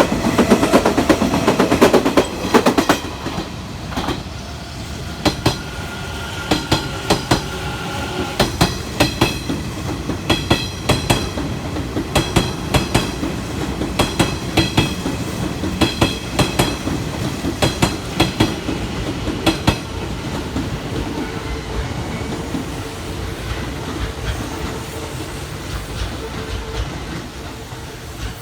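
Kintetsu electric train running past, its wheels clacking over the rail joints in regular pairs of clicks. A heavy rumble in the first few seconds gives way to the clacking, which then settles into a steady running noise.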